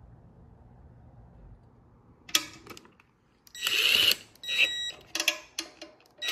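Ratchet and socket on a long extension running down the oil pan bolts, in a series of short bursts of rapid clicking with a high whine, starting about two seconds in after a faint low hum.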